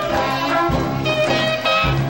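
Soundtrack music: an upbeat tune with held instrument notes over a steady beat.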